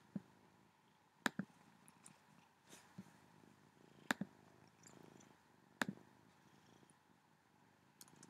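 A domestic cat purring faintly and steadily, with several sharp clicks over it, a few in quick pairs, as a computer is worked.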